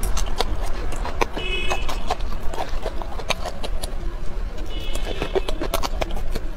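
Close-miked eating: crunching and chewing raw red chili peppers, with many sharp wet mouth clicks and smacks. Two brief high-pitched tones sound about a second and a half in and again about five seconds in, over a steady low hum.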